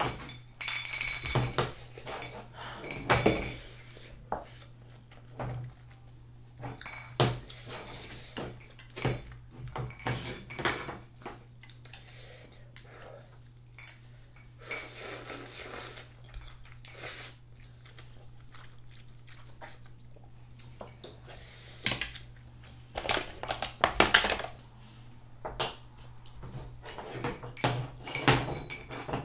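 Chopsticks and dishes clinking and tapping while ramyun noodles are eaten: a scattered string of short clicks and knocks, with a longer noisy stretch about halfway through.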